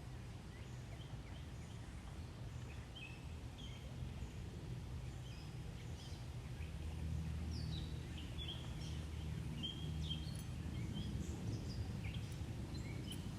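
Small birds chirping in many short, high calls over a low, steady rumble that grows slightly louder about halfway through.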